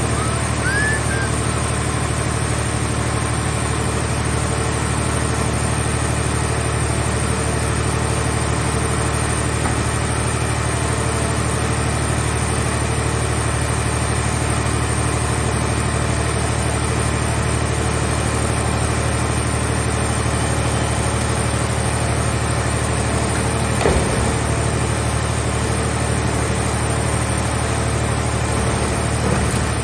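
Car-shell baler's engine running steadily at a constant speed, with one short knock about three-quarters of the way through.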